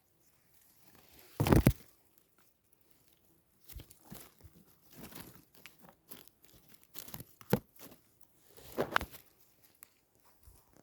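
Irregular close-up crunching and rustling, with a sharp loud crunch about a second and a half in and another near the end, amid softer crackles.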